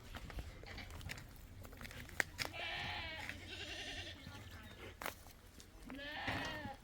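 Goats bleating: a couple of wavering bleats around the middle and another near the end, with a sharp click just before the first.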